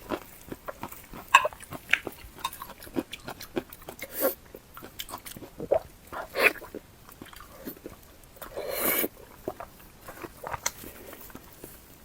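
Close-miked chewing and mouth sounds of someone eating fatty pork: irregular wet smacks and clicks, with a longer, noisier sound about nine seconds in.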